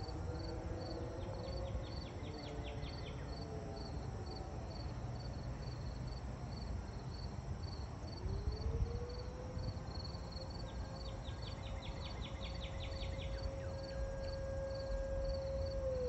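Emergency-call fire siren winding down, its tones falling away over the first few seconds, then winding up again about eight seconds in and holding one steady pitch. Insects chirp in a steady pulse about two to three times a second throughout, with two short bursts of fast ticking.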